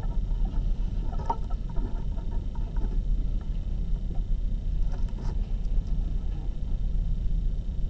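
Classroom room noise: a steady low rumble, with faint brief murmurs of voices about a second in and again about five seconds in.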